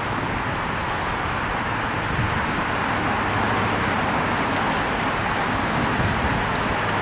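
Steady road and engine noise of a car being driven, an even rushing noise over a low hum.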